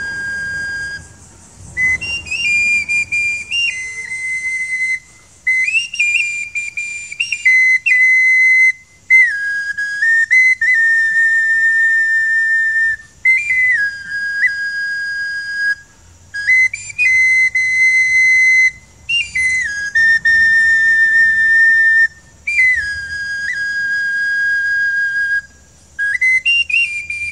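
A small whistle flute played in cupped hands: high, pure notes stepping up and down between a few pitches, in short phrases of a few seconds with brief pauses between them.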